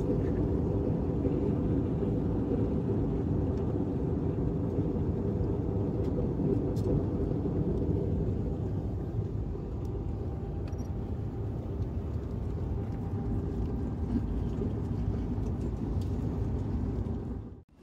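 Airliner cabin noise at a window seat: the steady low rumble of engines and rushing air during the descent for landing. It eases slightly about halfway through and cuts off abruptly near the end.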